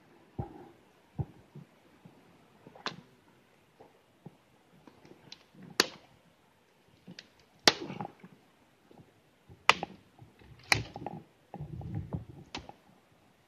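Dry twigs and dead branches snapping underfoot and brush rustling as someone pushes through woodland underbrush to get over a fallen tree: irregular sharp snaps, the loudest four coming in the second half, with a few soft thuds early on and a longer crackling rustle near the end.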